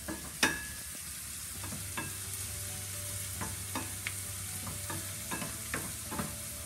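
Diced onion, garlic and chile peppers sizzling in oil in a stainless steel skillet while being stirred with a wooden spatula, which knocks against the pan at irregular moments, the loudest knock about half a second in.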